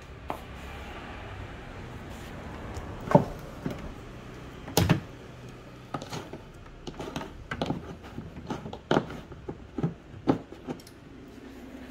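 Scattered clicks and knocks of power plugs and cables being handled and pushed into a power strip, the loudest knock about five seconds in and more frequent clicks after that, over a faint low hum.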